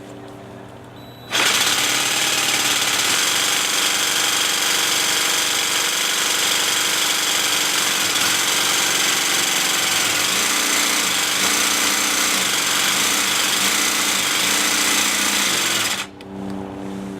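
Craftsman jigsaw with a Bosch T130DG diamond-grit tile blade cutting through tile, starting about a second in, running steadily and loudly, and stopping abruptly near the end.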